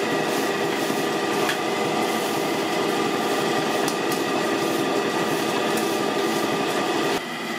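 Large electric bakery mixer running steadily as it beats batter in a steel pot, with a constant motor whine; the level drops a little about seven seconds in.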